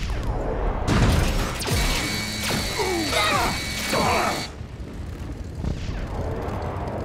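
Cartoon battle sound effects: mechanical whirring and clanking of robots, with zapping energy blasts. A sudden hit comes about a second in, then sweeping zaps over a steady whine until about four and a half seconds in, when it gets quieter.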